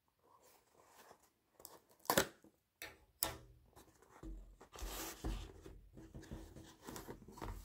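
A parcel's packaging being torn open and handled, with a few sharp clicks and then a run of rustling and tearing.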